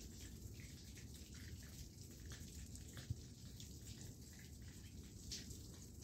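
Faint, irregular water drops pattering from ice-coated branches, with one sharper tick about three seconds in.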